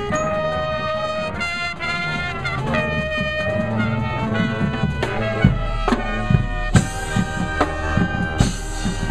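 High school marching band playing: the brass section, with trumpets and sousaphones, holds sustained chords. From about five and a half seconds in, sharp drum and percussion hits punctuate the music over a heavy low bass.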